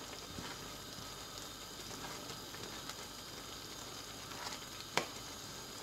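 Thick urad dal simmering in a steel pot as it cooks down to dry off its water: a faint steady sizzle with small crackles while a wooden spatula stirs it. One sharp knock about five seconds in.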